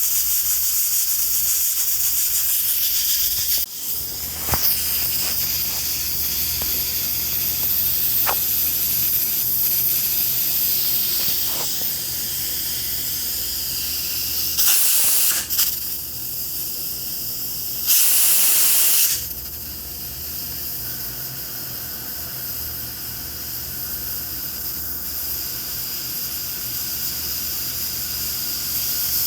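Pressure cooker hissing steadily as steam escapes through its valve, with two short, louder spurts of steam, about 15 seconds in and again about 18 seconds in.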